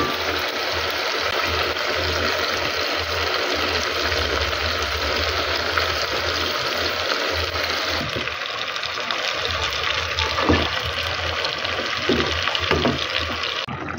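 Chopped tomatoes frying in hot oil in an aluminium pot: a steady sizzle, with a few knocks of a wooden spoon against the pot in the last few seconds. The sizzle stops suddenly near the end.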